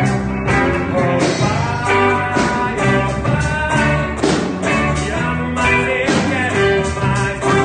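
Worship song played by a band: a voice singing over electric guitar and a steady drum beat.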